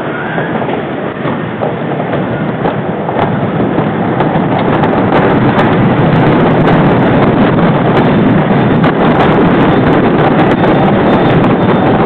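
Wooden roller coaster train rolling along its wooden track: a dense rumble of the wheels on the rails with rapid clicking and clatter, growing louder over the first few seconds and then holding steady, with wind on the microphone.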